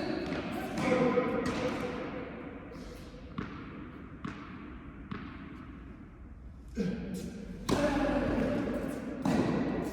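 Tennis balls being struck by rackets and bouncing on the court, a quick irregular series of pops, each ringing out with a long echo off the walls of an indoor hall.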